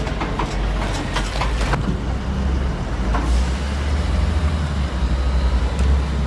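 Heavy vehicle engine running steadily with a deep rumble, with sharp cracks and clicks in the first two seconds.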